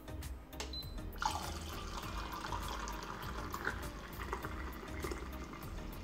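Hot water pouring in a steady stream from a Tesler TP-5055 electric thermopot's spout into a mug, starting about a second in.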